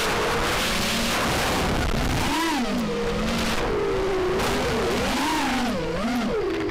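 Multirotor drone's electric motors and propellers whining, their pitch swinging up and down several times with the throttle, over a steady rush of air noise on the onboard camera.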